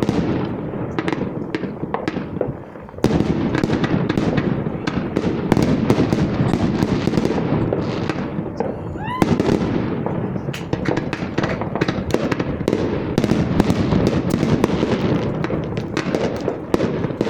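A dense fireworks barrage: rapid bangs and continuous crackling, briefly thinning about two and a half seconds in. A single rising whistle sounds about nine seconds in.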